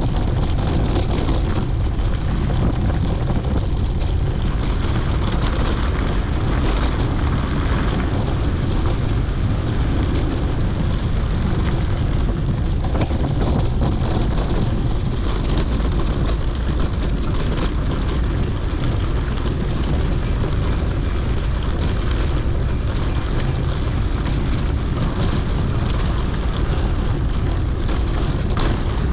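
Steady rush of wind buffeting a GoPro's microphone, mixed with the rumble of a mountain bike's tyres rolling over a dirt road, with a few small knocks from bumps.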